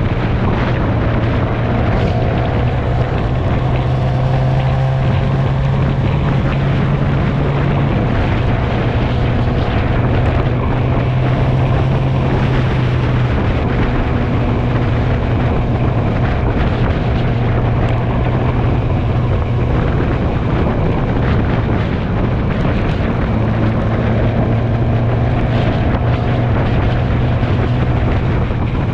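Motorcycle riding at a steady cruising speed: a steady engine hum under heavy wind rush on the microphone.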